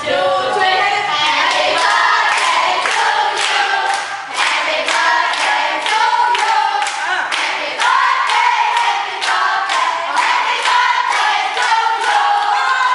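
A group of women singing together while clapping their hands in a steady rhythm.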